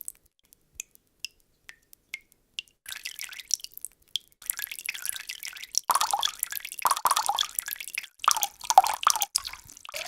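Water drops falling into water: single plinking drops a fraction of a second apart at first, then a quicker, louder run of drips and plops from about three seconds in.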